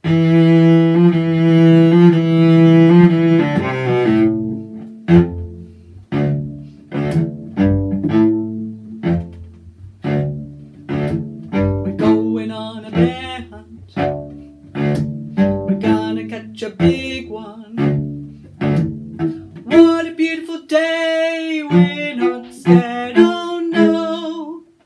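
Instrumental music on a low string instrument: a long held note, then a run of short separate notes about one a second, with longer held notes near the end.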